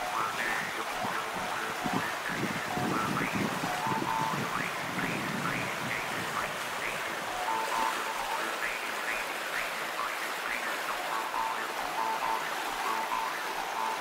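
A river swollen with spring snowmelt rushing and churning, a steady wash of flowing water. Scattered short, high notes sound over it.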